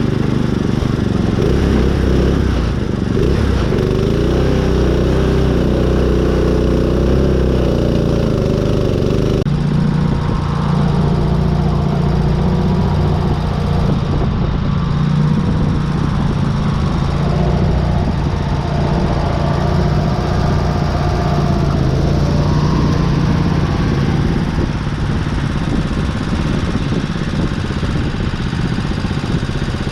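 Small riding-mower engine running hard under load while the modified mud mower is driven through mud, its pitch rising and falling as the throttle changes. The sound changes abruptly about nine seconds in.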